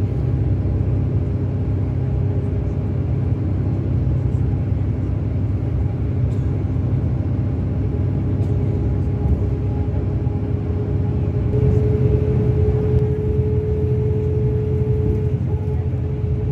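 Engine of a Mercedes-Benz O-500RSD 2441 coach, a six-cylinder diesel, running steadily with a low rumble and a constant hum. The hum grows louder for a few seconds in the second half.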